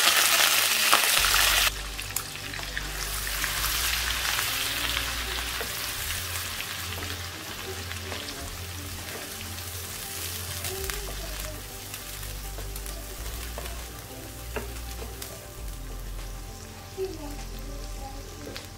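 Onion paste hitting hot oil with browned garlic in a frying pan. A loud burst of sizzling drops off after about two seconds, then steady frying continues as the paste is stirred with a spoon.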